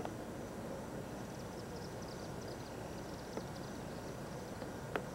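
Outdoor ambience: insects chirping faintly in a high, rapidly pulsing band over a steady background hiss and hum. A few sharp clicks, at the start, about three and a half seconds in and near the end.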